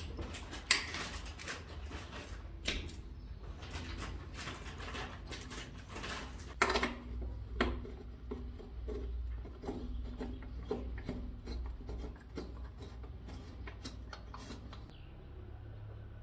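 A string of irregular metallic clicks and knocks from hand tools and parts being handled on a KTM 790 Adventure: a wrench on the oil drain plug, then the aluminium skid plate being fitted back under the engine. The loudest knocks come about a second in and around the middle, and the sounds thin out near the end.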